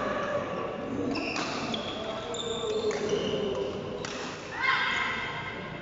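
Badminton rally in a large hall: sharp knocks of rackets striking the shuttlecock and short high-pitched squeaks of shoes on the court, with voices in the background.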